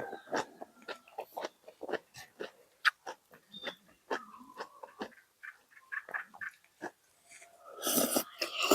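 Close-up eating sounds of someone eating a bowl of beef noodle soup: wet chewing, lip smacks and small clicks in quick irregular succession, with a louder, longer noisy burst near the end.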